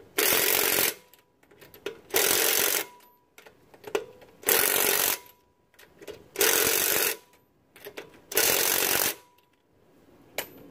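Cordless impact wrench hammering a car wheel's lug nuts tight: five short bursts about two seconds apart, one per nut.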